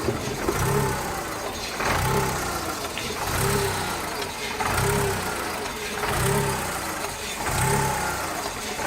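VW Polo 1.0 four-cylinder petrol engine idling unevenly, its speed rising and falling back about every one and a half seconds. The engine is misfiring, and new spark plugs have not cured it.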